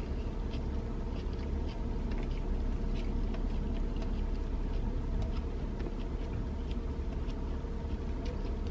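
Steady low hum inside a parked car, with faint irregular clicks and soft rustles as a sandwich is handled.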